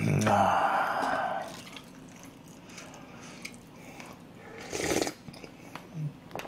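Loud slurp of pork and rice soup from a wooden spoon, lasting about a second and a half, then a brief second noise about five seconds in.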